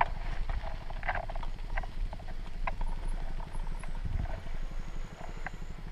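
Footsteps crunching on a stony dirt path, irregular clicks and scuffs about one or two a second, over a low rumble.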